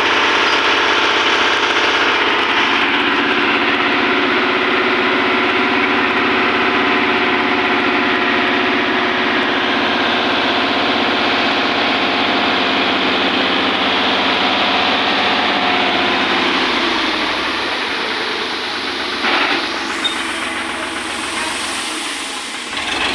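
Sonalika tractor's diesel engine running steadily while its hydraulic tipping trolley is raised to unload sand. About 16 seconds in the engine note drops and grows quieter. A few short knocks come near the end.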